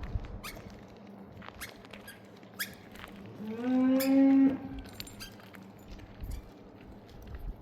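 A cow moos once, a single call a bit over a second long that rises slightly at its start, about three seconds in. Short faint clicks and ticks sound now and then around it.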